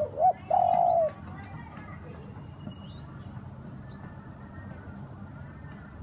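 A dove coos loudly, a short note followed by a held note, lasting about a second. Afterwards faint, high, rising-and-falling whistled chirps of another small bird come a few times.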